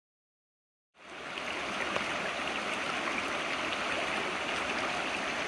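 Shallow rocky stream flowing over stones: a steady rush of water that fades in about a second in, after a moment of silence.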